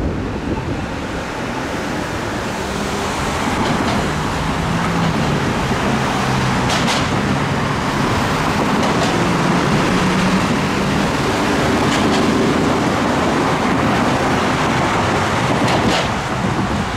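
Road traffic: cars driving past close by, a steady rush of tyre and engine noise that builds over the first few seconds and then holds.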